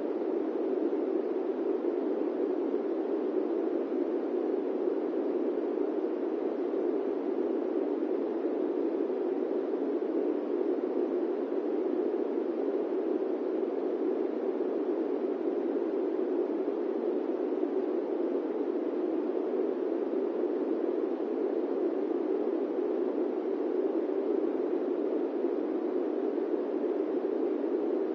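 Electric fan running: a steady, even low whoosh with no changes or rhythm.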